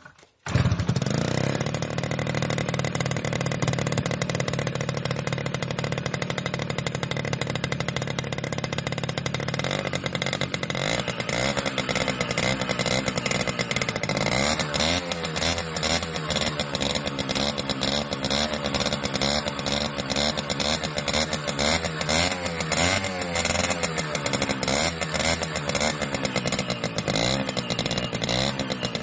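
Motorcycle engine running: a steady even note at first, then from about halfway the pitch rises and falls over and over.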